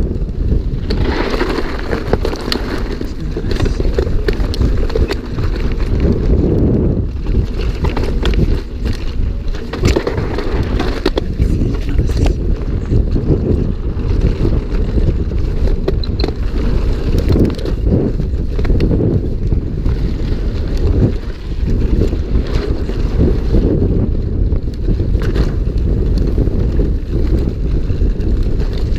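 Mountain bike descending a rough trail: wind buffeting the microphone over a steady rumble, with frequent clattering knocks from the bike and tyres on the rough ground.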